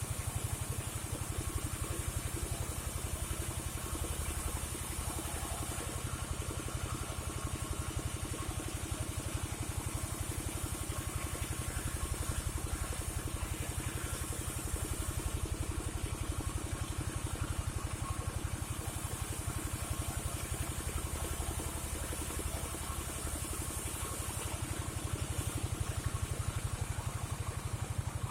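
Engine of a portable log-sawing rig running steadily at an even pace, with a faint high hiss over it.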